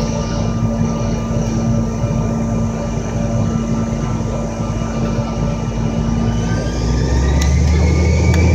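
Cabin noise of a CRJ700 regional jet, its rear-mounted GE CF34 turbofan engines running steadily, then spooling up near the end with a rising whine and a growing low rumble as thrust comes up for the takeoff roll.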